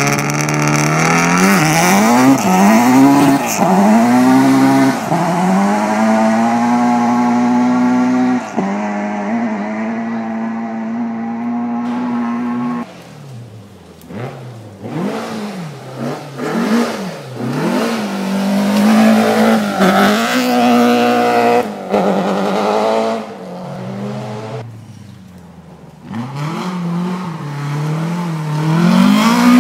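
Rally car engines at full throttle on a gravel stage, the pitch rising and falling with each gear change. About thirteen seconds in the sound drops suddenly to a more distant car working up and down through the revs, then grows loud again near the end as a car slides through the corner close by.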